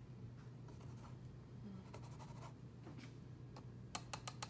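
Painting tools being handled: faint scratchy rubbing, then a quick run of about five sharp clicks near the end, over a steady low hum.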